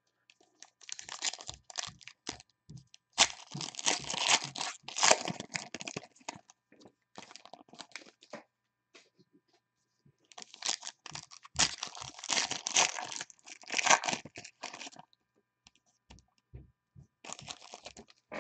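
Foil wrappers of football trading card packs (2020 Panini Legacy) being torn open by hand, a crinkly ripping in several spells with pauses between.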